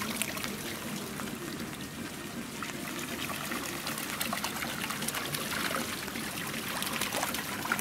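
Pool water splashing and trickling as Humboldt penguins swim and paddle at the surface: a steady wash of water with many small splashes.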